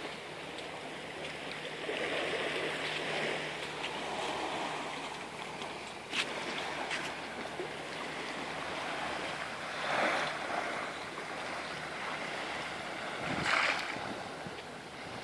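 Small waves lapping in a shallow sea lagoon: a steady wash of water, with a few louder swishes about two-thirds of the way through and again near the end.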